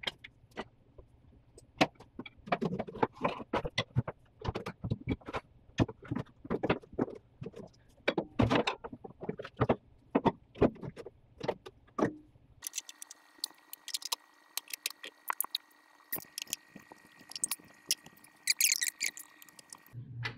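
Irregular metal clinks and knocks of hand tools against the Super Beetle's steering and suspension parts as the tie rod assembly is refitted. About two-thirds of the way in, a steady hum with a thin high tone comes in under the clinks.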